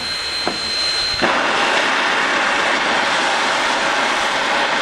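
Rio Grande Southern No. 20 steam locomotive venting a jet of steam and water from low on its side: a loud, steady rushing hiss that starts suddenly about a second in, over a thin high steady tone that it drowns out.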